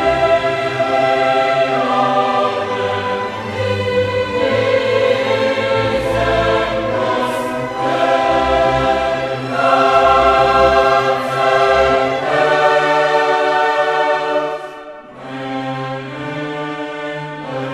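Background music: a choir singing long sustained chords with orchestral accompaniment, growing quieter for a moment about fifteen seconds in.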